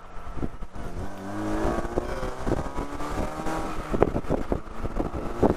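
Saturn Sky's 2.4-litre Ecotec four-cylinder engine rising in pitch as the open-top roadster picks up speed, with wind buffeting the microphone from about four seconds in.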